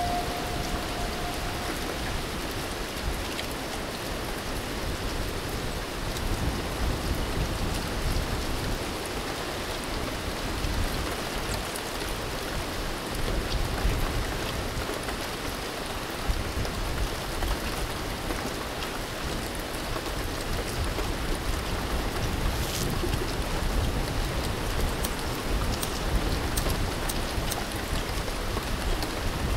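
Steady rain falling on open water and a waterfront, with a low rumble underneath. A single held tone stops about two seconds in.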